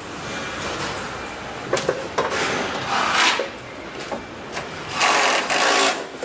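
Car assembly-line noise: a steady plant hum with several short bursts from a handheld power tool, the longest and loudest about five seconds in. A few sharp clicks of parts being fitted come just before two seconds.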